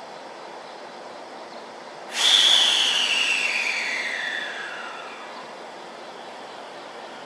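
JR Central 313-series electric train starting to pull out of the platform. About two seconds in, a loud high whistle-like tone starts suddenly and slides steadily down in pitch over about two and a half seconds, fading as it falls, over a steady background hum.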